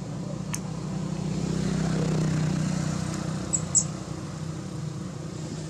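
A motor vehicle driving past, its low engine hum swelling to a peak about two seconds in and then fading.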